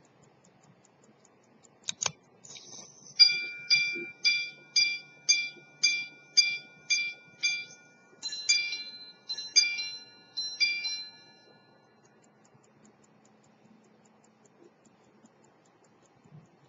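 Antique Swiss quarter-repeater pocket watch striking the time on its steel gongs: a click as the repeater slide is pushed and a short whirr of the mechanism, then a run of single ringing hour blows about half a second apart, then three quick two-note double strikes for the quarters. The faint ticking of the running movement is heard before the strike.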